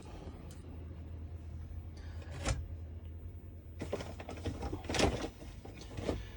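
A few knocks and rattles of things being handled, the loudest about five seconds in, over a low steady hum.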